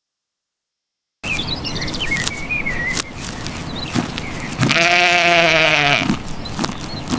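Sheep bleating: after about a second of silence, one long, quavering bleat comes about two-thirds of the way in and is the loudest sound.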